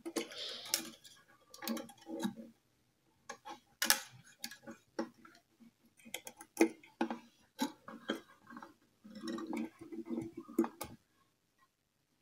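Irregular small clicks, taps and rattles as loose violin strings and the tailpiece fittings are handled against the violin body while a string is hooked back on.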